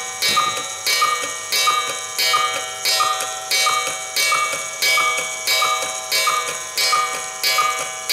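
Cuckoo clock cuckooing without stopping, about three calls every two seconds in an even, unbroken run. The clock is faulty: its cuckoo fails to shut off after the hour count.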